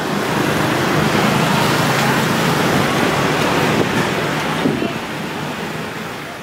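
Road traffic on a busy street: a steady rush of passing cars and vans that swells about a second in and eases off near the end.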